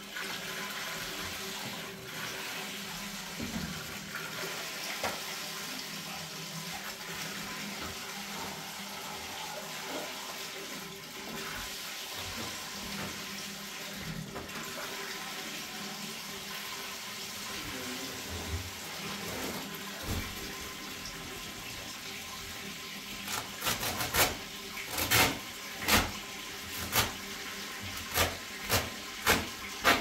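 Water running from a hose into a metal barrel, a steady pouring rush. Near the end, a quick series of sharp knocks, about a dozen over the last six or seven seconds, is louder than the water.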